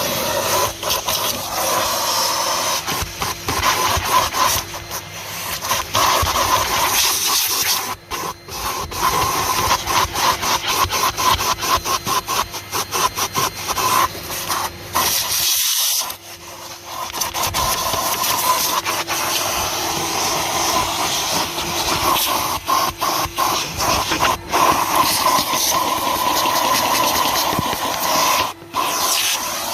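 Kerstar KV25-2 twin-motor commercial vacuum cleaner running, a steady rushing whine whose sound dips briefly many times, most deeply about halfway through.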